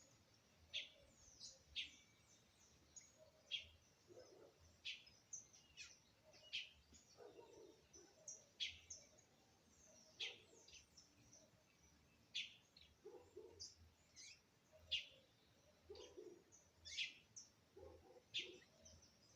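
Red-crowned woodpecker calling: short, sharp high calls repeated every second or so, with softer, lower notes in between.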